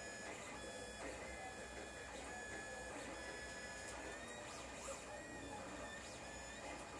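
Lulzbot TAZ 5 3D printer printing, its stepper motors whining in thin tones that jump between pitches and bend in short glides with each move of the print head and bed, over a steady hiss.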